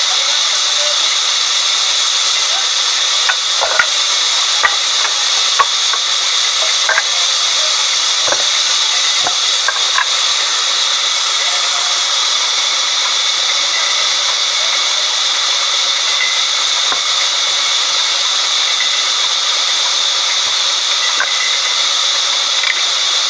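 Vertical band sawmill blade cutting lengthwise through a large log: a steady, loud high-pitched hiss with a whining tone. A few sharp knocks come through in the first ten seconds or so.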